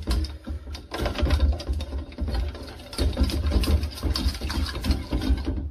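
A spoon stirring and scraping quickly around a stainless steel bowl, mixing a wet yogurt-and-spice paste, in a fast, rhythmic run of strokes.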